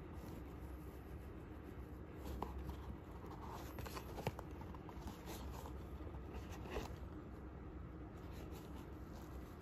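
Hands handling a new trail running shoe and its paper packing: faint rustling and scraping, with a cluster of sharper clicks and scratches from about two to four and a half seconds in, the loudest near the end of that cluster, and one more near seven seconds. A steady low rumble lies underneath.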